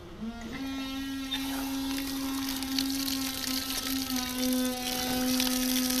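Water rushing through an opened outside tap and a flow meter on its outlet under high mains pressure, with a steady humming whine that starts just after the tap opens. The hiss of the flow builds over the first second or two. This is a flow-rate test of the incoming cold mains, running at about 20 litres per minute.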